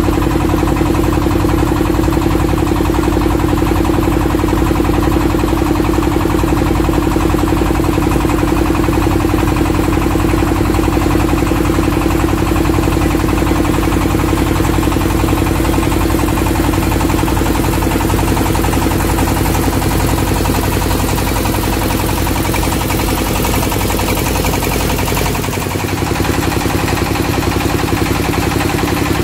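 Engine of a wooden passenger boat running steadily under way, with a constant hum and water rushing along the hull. A few seconds before the end the sound shifts, the hum dropping away.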